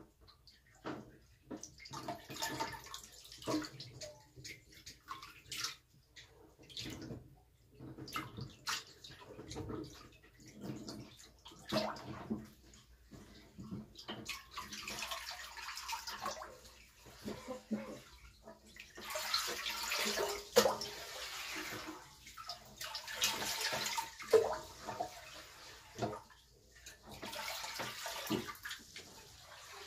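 Water splashing and sloshing irregularly in a tank of live bigeye scad, stirred at the surface, with louder spells in the middle and near the end.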